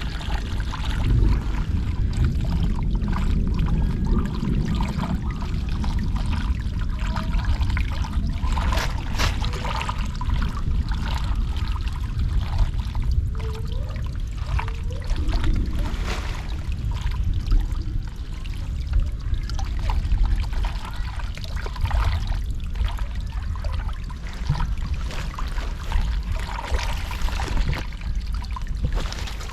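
Water running and pouring as a flooded culvert drains, a steady low rush with many short splashes and knocks scattered through it.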